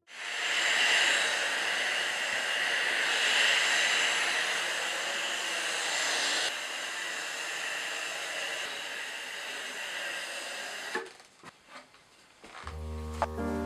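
Steam iron hissing steadily as it puffs steam while pressing silk fabric. The hiss drops a little about six seconds in and stops about eleven seconds in, followed by a few faint clicks; music starts near the end.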